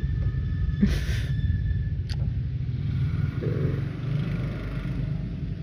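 A vehicle engine idling, a steady low rumble. A brief rustle about a second in and a sharp metallic click about two seconds in, as the tow strap is fastened to the car's rear.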